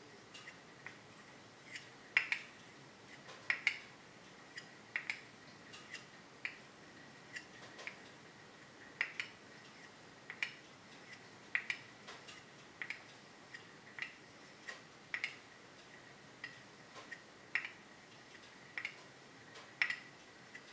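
A small carving blade honed by hand against a hand-held slip: short, irregular metal ticks and light scrapes, roughly one to two strokes a second.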